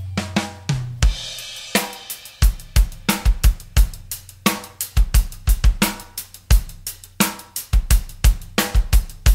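A drum kit playing a busy beat, with kick drum, snare, cymbals and hi-hat, as intro music. It cuts off abruptly just after this.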